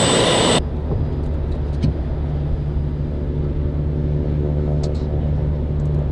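A helicopter's turbine running with a steady high whine, cut off abruptly about half a second in by the steady low hum of a pickup truck's engine idling, heard from inside the cab.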